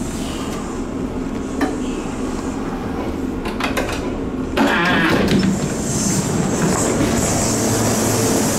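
Inside a Kintetsu limited express train as it stands at a station, with a steady rumble. A few sharp clicks come about three and a half seconds in, then a sudden loud rush of noise as the passenger doors open. After that comes open platform noise with a high hiss.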